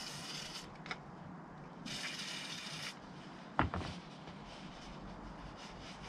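Aerosol can spraying into a rag in two short bursts of hiss, the first stopping about half a second in, the second about two seconds in and lasting about a second. A sharp knock a little after halfway, the can being set down on the table, then soft rubbing of the rag.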